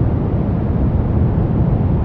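Steady brown noise: an even, deep rushing hiss weighted toward the low end, with no changes.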